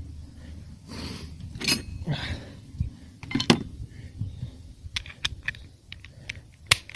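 Metal tools and engine parts being handled: a run of separate sharp clinks and knocks, with no steady running sound.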